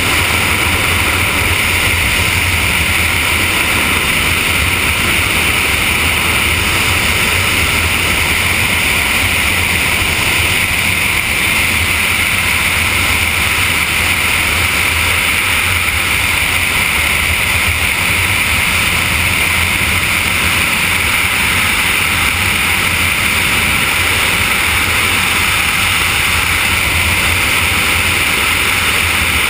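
Steady, unbroken rush of wind blasting over a camera's microphone during wingsuit freefall.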